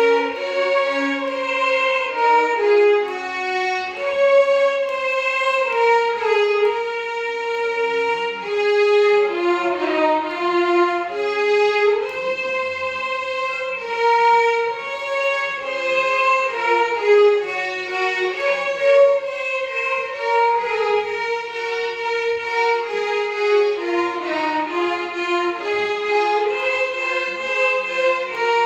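Violin ensemble playing a Carnatic melody in unison, the notes moving stepwise with gliding ornaments.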